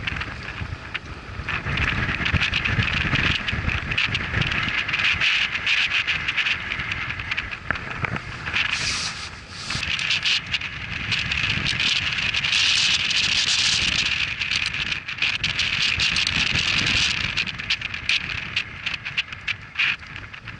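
Wind buffeting the microphone over a steady hiss that swells twice, around nine and again around thirteen seconds in, with scattered clicks and rustles as gloved hands handle the landing net and a tape measure.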